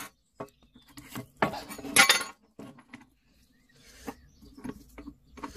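Metal tools and the pole pruner's guide bar and chain being handled on a workbench while the sprocket cover is refitted: scattered clinks and knocks, with a louder scraping rattle about one and a half to two seconds in.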